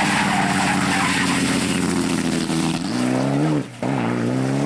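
Rally car engine running hard at high revs, with tyre and gravel noise. Near the end the revs climb, dip sharply for a moment, then pull again.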